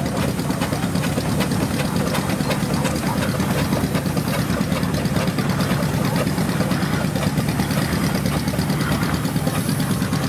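A small steam tractor running as it drives slowly past, a steady low hum under fast, even clattering ticks.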